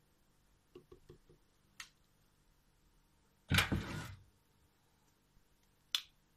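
Quiet kitchen handling sounds: a few faint ticks, a short louder knock-and-rustle about halfway through, and a sharp click near the end as a spatula comes to the cream in a stainless steel cake ring.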